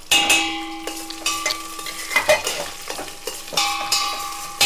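Metal spatula stirring and knocking against a stainless-steel pot, the pot ringing after the strikes near the start and again about three and a half seconds in, while carrot, capsicum and green chilli fry in ghee with a sizzle.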